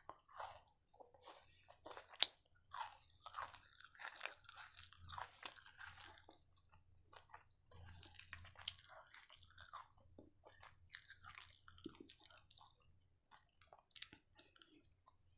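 Close-up chewing and biting of crunchy food, raw onion slices with fried chicken kebab: irregular crisp crunches and mouth sounds, with one sharp crunch about two seconds in.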